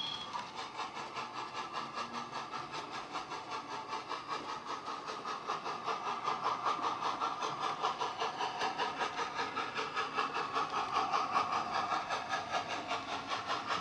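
Sound-decoder steam chuffing from an SWD A4 sound file in a Hornby rebuilt W1 model locomotive, played through a bass-enhanced speaker. It runs as a steady beat of about three chuffs a second with a hiss of steam, growing louder as the model approaches.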